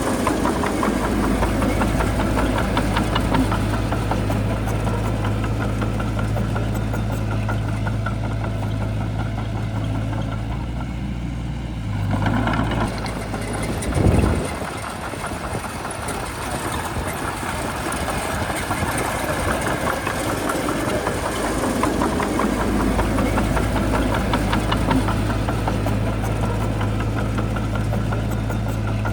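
Shantui bulldozer's diesel engine running with a steady low drone. About 14 seconds in there is a short loud burst, after which the low drone drops away for several seconds before coming back.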